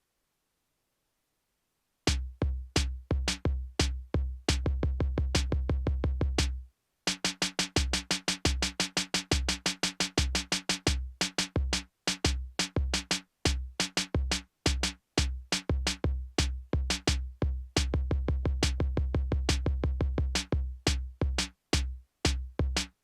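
Eurorack drum pattern: a DivSkip rhythm module clocked by Stolperbeats triggers drum samples on a Bitbox sampler, playing deep kick thumps and sharp clicky hits in a skipping groove. It starts about two seconds in, breaks briefly around seven seconds, then comes back faster and denser with a pitched tone under the hits.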